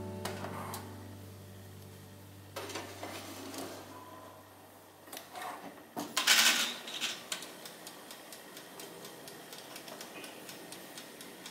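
A guitar chord rings out and fades over the first few seconds, followed by scattered light clicks and clatter of household handling, with a louder rustling burst about six seconds in.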